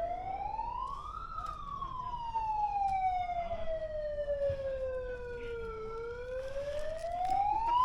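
A siren wailing in one slow cycle: its pitch rises for about a second, falls gradually for several seconds, then climbs again near the end.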